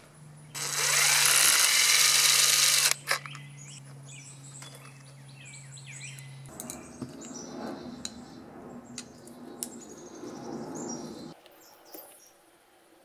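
Cordless drill/driver running for about two seconds, its motor whine rising as it backs a screw out of a small two-stroke engine's carburetor cover. After that, birds chirp faintly amid quiet handling sounds.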